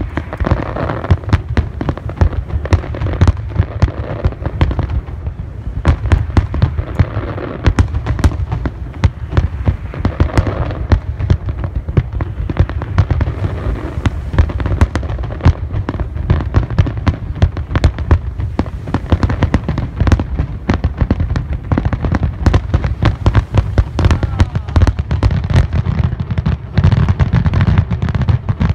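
Fireworks display: aerial shells bursting in a dense, unbroken run of bangs, several a second, with heavy low booms.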